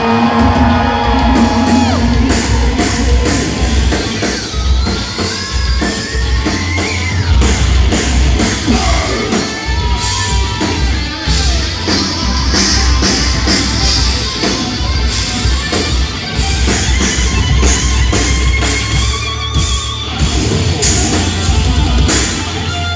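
Live rock band playing a loud instrumental break: drum kit, bass and electric guitar lines, with the crowd yelling.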